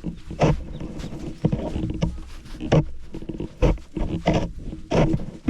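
Footsteps crunching in snow, short irregular steps roughly every half second to second, over a steady low rumble of wind on the microphone.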